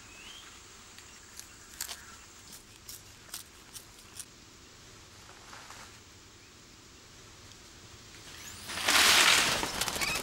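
Quiet outdoor ambience with a scatter of short, sharp clicks and snaps through the first half. Near the end comes a loud whoosh lasting about a second and a half: a swish effect for a whip-pan transition.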